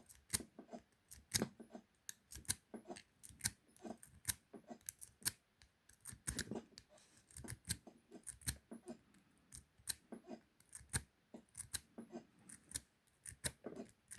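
A lock pick and tension wrench working the pin stack inside a Burg 554/40 40 mm padlock: irregular small metallic clicks and scrapes, several a second, as pins are lifted and set.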